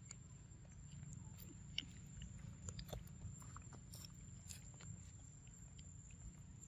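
A macaque biting into and chewing a ripe mango: faint, irregular wet smacks and clicks of eating, over a low steady background hum.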